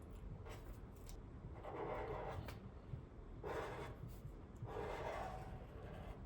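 Faint drawing strokes: a pen scratching across a surface in three or four soft swishes, with light ticks between.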